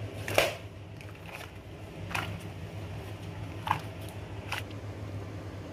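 Handling noise: four sharp clicks and soft rustles, spread over the few seconds, over a steady low hum.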